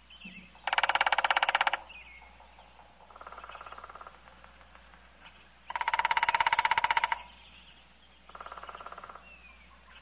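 Woodpecker making four fast rattling bursts of about a second each, alternating louder and fainter. Short faint bird chirps come between them.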